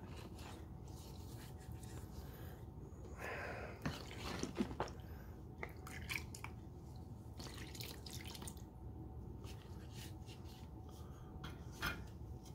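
Liquid sealer dripping and splashing in a plastic tub as a black cat figurine is dipped and sealer is scooped over it with a measuring cup: a few short splashes and light knocks over a faint steady hum.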